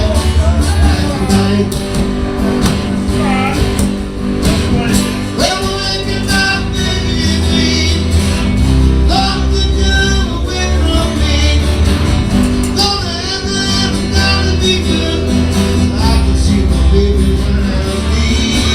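Live acoustic music: guitars playing a song with singing over them.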